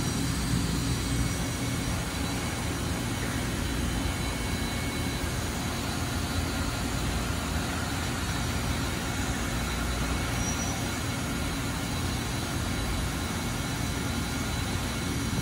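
Steady machine-shop noise: a constant low hum with hiss from running machinery, with no single event standing out.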